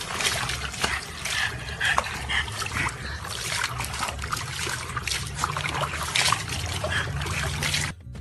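Water splashing and sloshing in a plastic tub as a small dog sits and moves about in it. The sound cuts off abruptly near the end.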